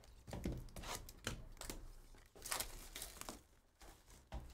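Cardboard hobby box handled and opened, and a foil trading-card pack wrapper crinkling and tearing: a run of irregular quick rustles and rips.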